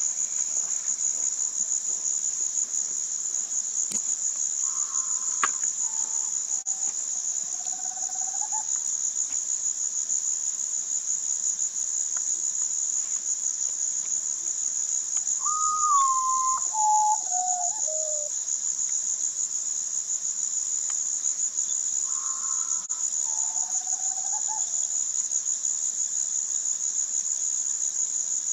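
Common potoo singing its mournful song: a series of whistled notes stepping down in pitch, the clearest phrase about halfway through, with fainter phrases earlier and later. A steady high-pitched insect chorus runs underneath.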